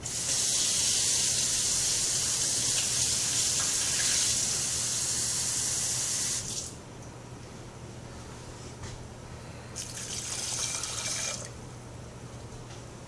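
Kitchen tap running to draw the two cups of water for the rice: a steady run of about six and a half seconds, then a shorter run of about a second and a half.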